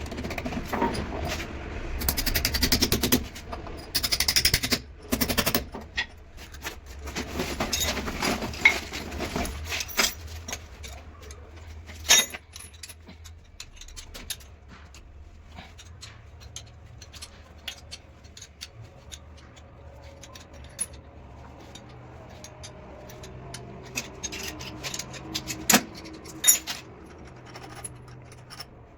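Hand work with tools and fittings while a toilet pan is being fixed: clattering, knocking and scraping, busiest in the first ten seconds, then only scattered clicks over a faint low hum.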